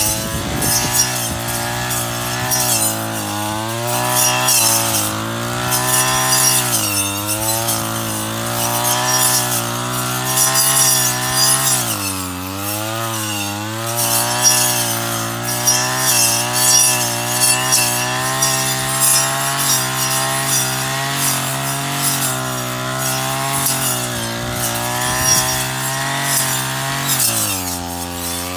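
Brush cutter engine running at working speed while mowing grass, its pitch dipping briefly about four times as it bogs or the throttle eases, over a steady hiss of grass being cut.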